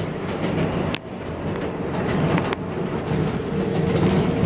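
R142A subway train running along elevated track: a steady rumble with a couple of sharp clicks, about one second in and again about two and a half seconds in.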